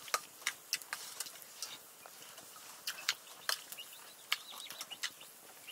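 Eating sounds: irregular short clicks and scrapes of a metal spoon against a steel plate of rice and curry, mixed with chewing.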